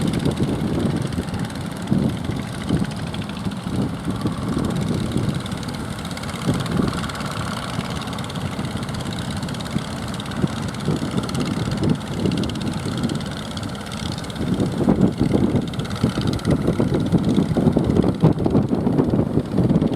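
Fishing boats' motors running, heard through heavy wind buffeting on the microphone. The rumble gets gustier and louder about three quarters of the way in.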